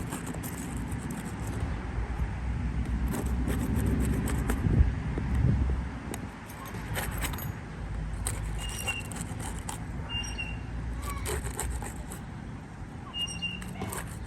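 Scraping and clicking of a tool working under 3-tab asphalt shingles to break their seals, with a car passing on the road, rising and fading within the first six seconds.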